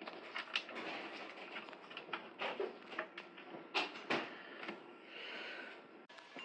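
Irregular clicks, taps and light knocks of computer parts being handled and fitted in a PC case, with the two loudest knocks close together a little under four seconds in.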